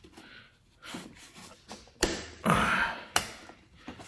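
Gloved hands handling a plastic motor-oil jug and twisting its cap off: two sharp plastic clicks about a second apart, with a short rustling scuff between them.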